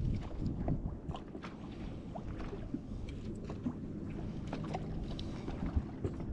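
Quiet sounds aboard a small fishing boat: a steady low rumble with scattered light clicks and knocks, and a faint low hum for a second or so around the middle.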